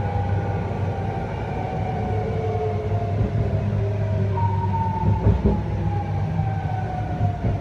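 BART car's Adtranz AC traction motors whining as the train slows, several tones gliding down in pitch together over a steady rumble of the running gear. About halfway through a higher tone steps in and falls again, and there is a brief knock about five seconds in.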